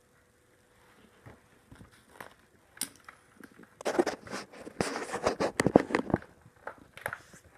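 Plastic toy packaging being handled: scattered clicks and crackles, thickening into a rapid cluster about four seconds in that runs for roughly three seconds.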